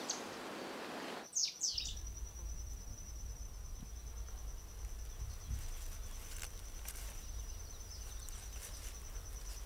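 Scrubland ambience: a bird call with two quick downward sweeps about a second in, then a steady high insect trill, cricket-like, over a low wind rumble.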